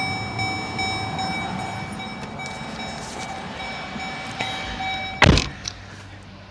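Steady background noise with a few faint steady tones, then a car door shutting with one loud thump about five seconds in. After it everything sounds muffled and quieter.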